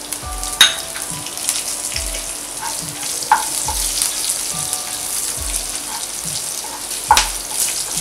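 Cumin seeds and green chillies sizzling and crackling in hot oil in a non-stick frying pan, with a spatula stirring and clicking against the pan about three times.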